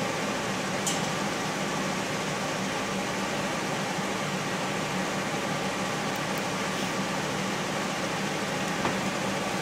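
Steady room tone: an even hiss with a low hum, like a fan or air handling running, and a faint click about a second in.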